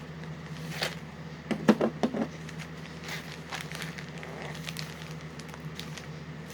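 Plastic snack packaging crinkling and crackling as it is handled and opened, with a louder cluster of crackles about a second and a half in. A steady low hum sits underneath.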